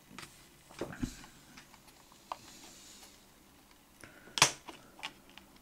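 Light clicks and handling of a steelbook's plastic disc tray. About four and a half seconds in there is a sharper plastic snap as a Blu-ray disc is pried off its centre hub.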